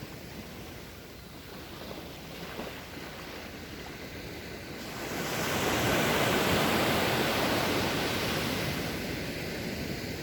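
Sea waves washing onto the shore, one wave swelling up about halfway through into a loud rush and then easing off.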